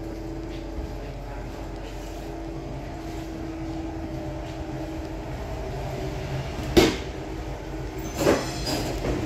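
Historic electric tram running on the track, with a steady hum and low rumble and two sharp knocks, one about two-thirds of the way in and one near the end.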